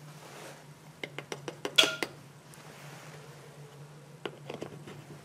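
A quick run of light clicks and clinks from small hard lab items being handled, the loudest about two seconds in, then a few softer ones near the end.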